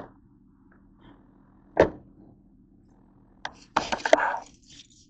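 Clear plastic clamshell container handled on a tabletop: a sharp plastic knock about two seconds in, then a quick cluster of crackling clicks near the end as the lid is pried open.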